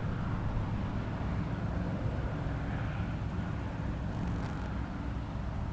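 Steady low rumble of a passing RoRo car ferry's engines and propulsion.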